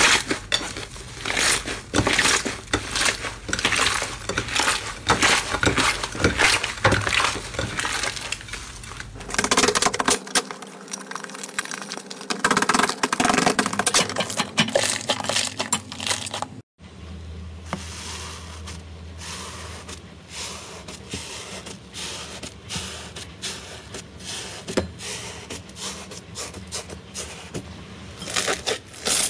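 Hands kneading, squeezing and pressing slime, giving a steady run of sticky crackles, clicks and small pops. There is a short break about two-thirds of the way in, after which the clicking goes on over a low steady hum.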